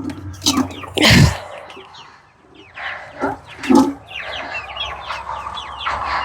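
Chickens clucking in short scattered calls, with a loud knock about a second in and a busier run of short higher calls near the end.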